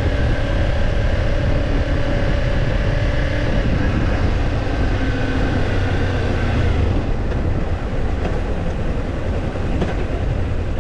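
Kawasaki Ninja 250's parallel-twin engine running under way, heard from on the bike. About two-thirds of the way through it eases off and settles to a lower, evenly pulsing run.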